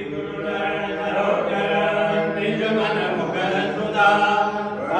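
Devotional chanting by several voices singing together in long held notes.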